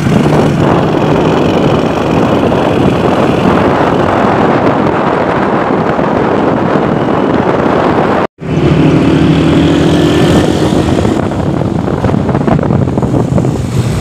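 Wind rushing over the microphone on a moving motorcycle, with the bike's engine running as a steady low hum underneath. The sound drops out for an instant about eight seconds in, then carries on.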